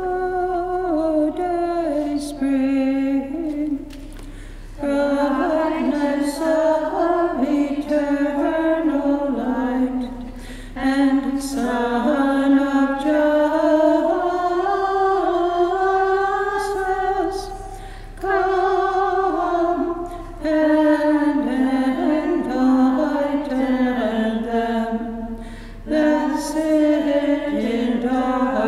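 A woman singing alone without accompaniment, a slow chant-like melody sung in long phrases with short breaths between.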